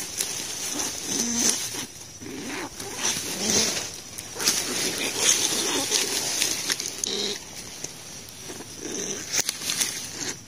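Dry straw rustling as a hand parts and searches through it, with short, low animal-like sounds repeating about once a second.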